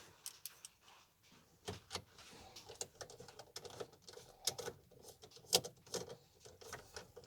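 Irregular light clicks and taps, several a second, with one louder click about five and a half seconds in.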